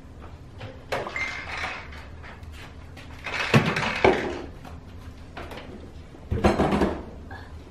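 Kitchen cupboard doors and drawers being opened and shut: three sudden bouts of clattering, about a second in, the loudest around three and a half seconds, and another near the end.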